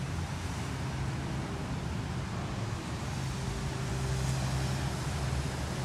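Steady rumble of distant city traffic, with a low engine drone that grows slightly louder about four seconds in.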